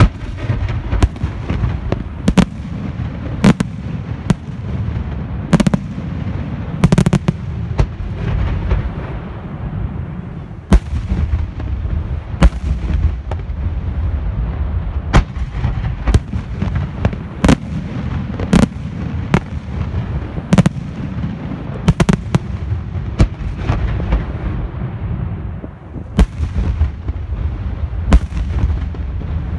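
Aerial firework shells bursting overhead in rapid succession: dozens of sharp bangs, irregularly spaced, over a continuous low rumble.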